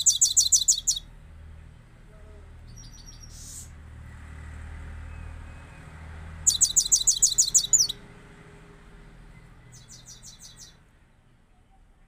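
A caged grey-crowned goldfinch singing in short bursts of rapid, high, evenly repeated notes, about ten a second. It gives two loud trills, one at the start and one just past the middle, with softer snatches of song between them.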